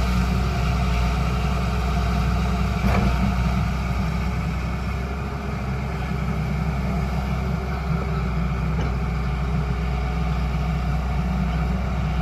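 Diesel engine of a Hyundai R210 Smart Plus excavator running steadily, with a sharp knock about three seconds in and a fainter one near nine seconds.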